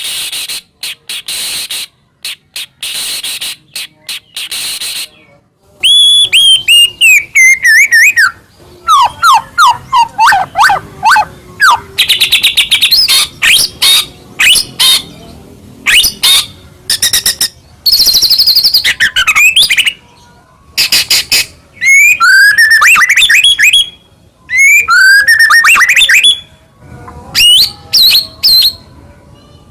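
White-rumped shama (murai batu) singing loudly: fast rattling click runs in the first few seconds, then varied whistled phrases of falling and rising notes and quick note strings, broken by short pauses and further rattles.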